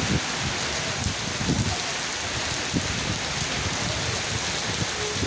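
Heavy rain pouring steadily onto a road and puddles, a dense, even hiss.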